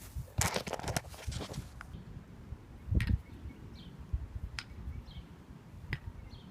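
Wenge-wood kendama ball clacking against the wooden cups and spike during tricks: a quick flurry of knocks in the first second or two, then single clacks about three, four and a half and six seconds in, the one at three seconds the loudest. Birds chirp faintly.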